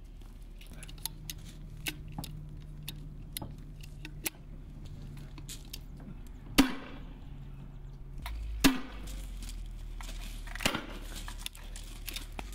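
Three loud sharp gunshot reports on a firing range, about two seconds apart in the second half, each with a short ringing tail. Many small metallic clicks of weapons being handled run beneath them, over a low steady hum.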